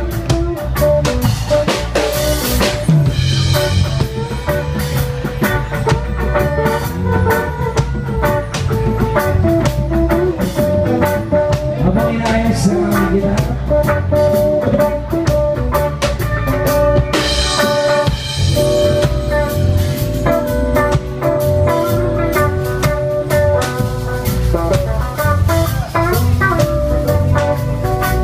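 Band music with a drum kit and guitar, a steady beat and cymbal crashes about two and a half seconds in and again about seventeen seconds in, played at a sound check.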